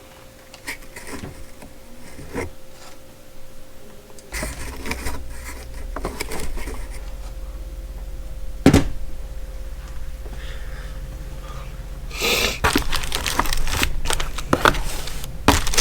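Handling noise of metal wrenches and their packaging: scattered clicks and knocks, one sharp knock near the middle, and a run of rustling and clicking in the last few seconds, over a low steady hum that starts about four seconds in.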